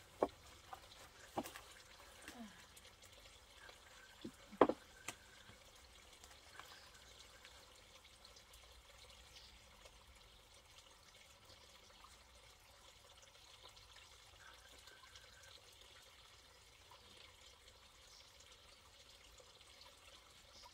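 A few light knocks and clatters of things being handled, the loudest about four and a half seconds in, over a faint steady trickling hiss.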